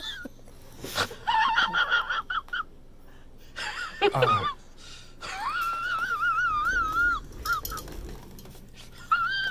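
A person's high-pitched, wheezing squeals of laughter in four wavering bouts, the longest lasting about two seconds.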